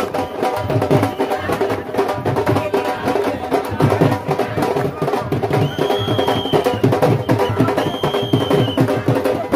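Loud festive procession music driven by fast, steady drumming under sustained melody notes, with two long high whistle-like tones over it in the second half.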